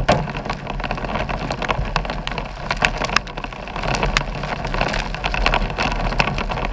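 Hail and rain pelting a vehicle's roof and windshield, heard from inside the car: irregular sharp ticks over a steady hiss of rain, with a low hum underneath.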